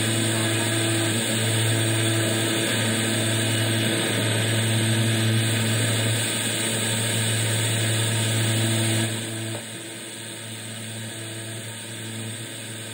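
Advance S-120 portable speaker in FM radio mode, playing untuned static: a loud steady hiss with a low hum underneath, which drops noticeably in level about nine seconds in.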